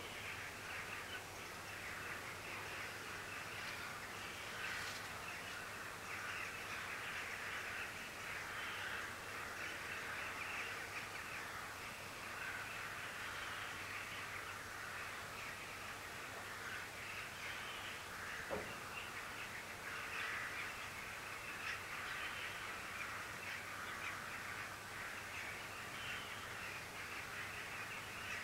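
A steady, dense chorus of animal calls, a busy chatter that never stops, with one sharp click about two-thirds of the way through.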